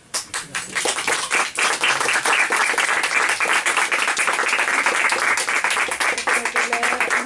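A small group of people applauding, many hands clapping together at once; the applause starts abruptly and stays steady.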